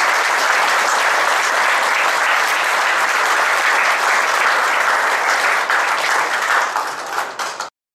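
Audience applauding: a steady, dense clapping that cuts off abruptly near the end.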